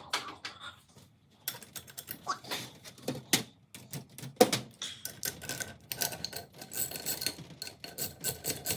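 Hand tools working on a small Briggs & Stratton engine: scattered metallic clicks and knocks, turning into a fast, even clicking from about five seconds in.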